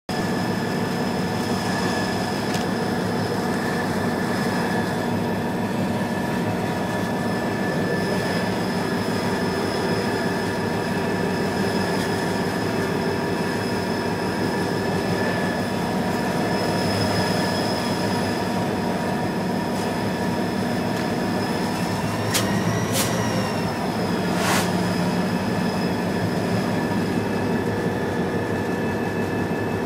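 Freight train rolling past steadily, a continuous rumble with a steady high-pitched wheel squeal over it. A few sharp knocks come a little over twenty seconds in.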